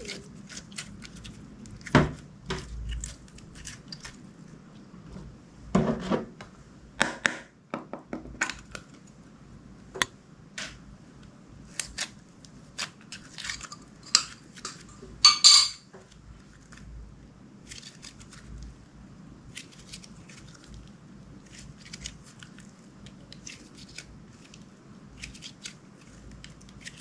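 Clear slime being handled and mixed: irregular sticky clicks, pops and crackles. The loudest come a little past halfway, with softer clicking after.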